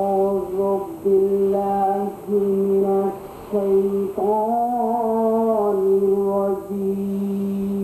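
A single voice chanting in long held notes on a nearly steady pitch, with short breaks between them and a wavering, rising phrase about four seconds in.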